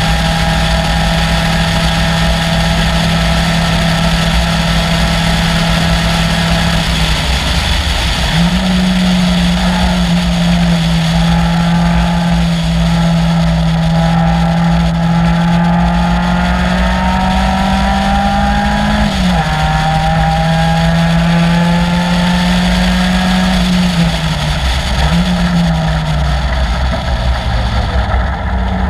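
Caterham Seven's 2.3-litre Ford Duratec four-cylinder racing engine running hard under load. Its pitch holds steady and climbs slowly, with a dip and recovery about seven to eight seconds in and a sharp drop in revs around nineteen seconds. Near the end the revs fall, with one short blip in the middle of the fall.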